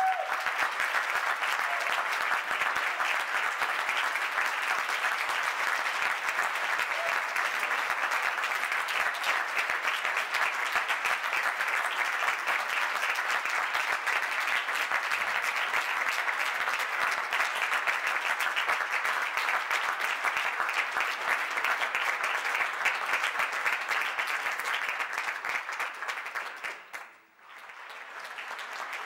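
Audience applauding steadily, the clapping dropping out briefly near the end before picking up again.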